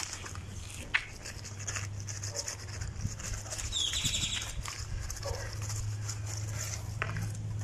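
A brief animal call about four seconds in, over a steady low hum, with a sharp knock about a second in.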